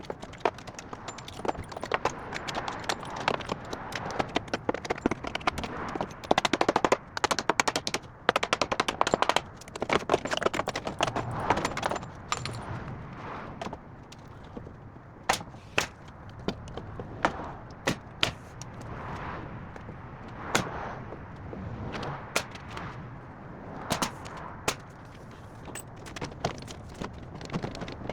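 Repeated sharp knocks from construction tool work: dense, rattling runs of impacts for the first dozen seconds or so, then separate knocks at about one a second.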